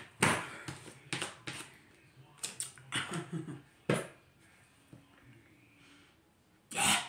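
Tarot cards being handled and shuffled: a string of short, sharp slaps and clicks as the cards are knocked together, with brief soft murmuring and a louder rustle near the end.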